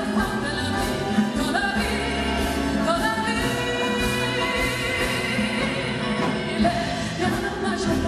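Woman singing a ballad at a grand piano, with piano and orchestral accompaniment, in a live concert recording; her voice glides up into a long held note through the middle.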